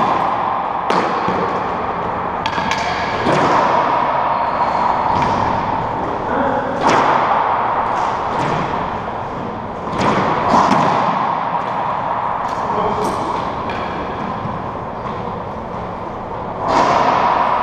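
Racquetball rally: irregular sharp smacks of the hollow rubber ball off racquets, walls and floor, a dozen or so, each ringing out in the echoing enclosed court.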